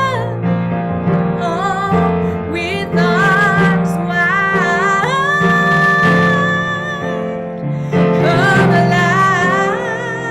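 A woman singing a slow melody in a full, open voice over an instrumental accompaniment, holding one long note about halfway through.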